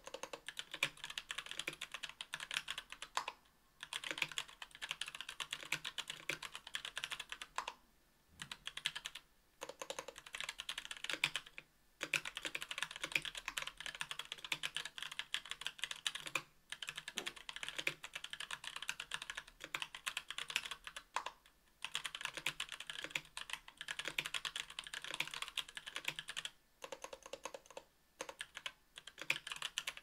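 Continuous fast typing on a 60% mechanical keyboard with stock Kailh Box Brown tactile switches on an aluminum plate in an aluminum case, with GMK doubleshot ABS keycaps: a dense run of key clacks, broken by several short pauses.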